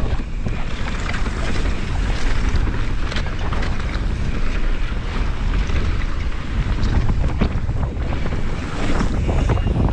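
Wind buffeting the action-camera microphone over the low rumble of a mountain bike riding fast down a dirt trail, with scattered clicks and rattles from the bike over bumps.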